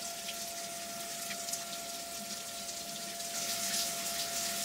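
Flood coolant spraying and splashing inside a CNC milling machine's enclosure, a steady watery hiss that grows a little louder near the end, with a steady tone running under it.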